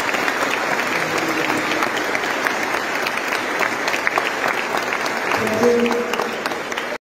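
Audience clapping steadily in a large crowd, cutting off suddenly near the end.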